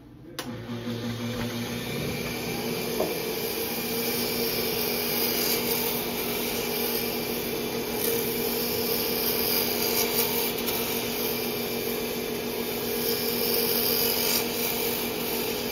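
Wood lathe starting up just after the beginning and then running steadily, its motor humming, while a turning tool cuts the spinning wooden mallet handle with a continuous scraping, rasping sound as shavings fly off.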